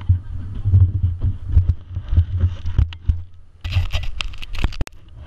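Low, irregular buffeting on an action camera's microphone, then scraping and several sharp knocks for the last second and a half as the camera is moved and handled.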